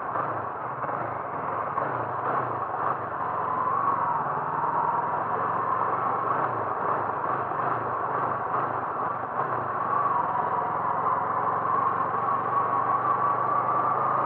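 A car engine running steadily with a continuous drone, its pitch creeping up slightly in the second half.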